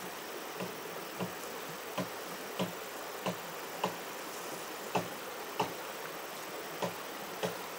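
Bare footsteps walking on a grassy path, a soft thud about every 0.6 seconds at an even pace, over a steady hiss of running water.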